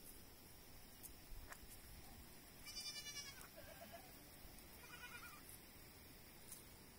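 Young goat kids bleating faintly, three short high calls around the middle, the first the loudest.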